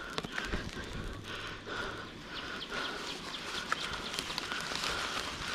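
Rhythmic chirping call, about two pulses a second, from a small animal, with scattered clicks and rustling close by.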